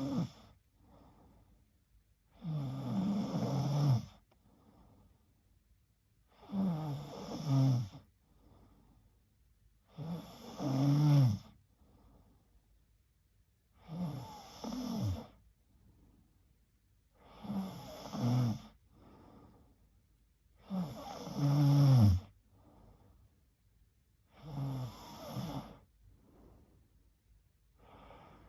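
A young woman snoring in her sleep: regular snores about every three and a half seconds, each a pitched rasp lasting over a second, with fainter breaths between them.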